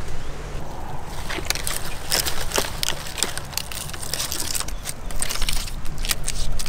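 Dry firewood sticks knocking and crackling as they are handled and bound into a bundle with a green leaf strip: a dense run of sharp snaps and rustles starting about a second in, over a steady low rumble.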